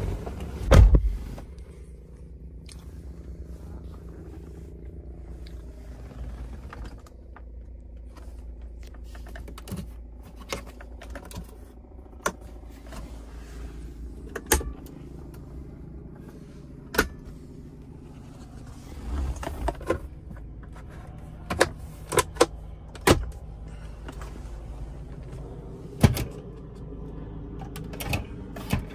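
Scattered clicks, knocks and light rattles of a pickup truck's interior trim being handled, including the centre console and its lid, over a steady low hum in the cab. A heavier thump comes about a second in.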